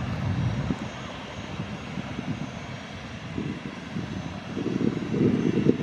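Boeing 737-800's CFM56 turbofan engines running at taxi power as the jet rolls along the runway: a steady jet rumble and hiss, with the low rumble growing louder near the end.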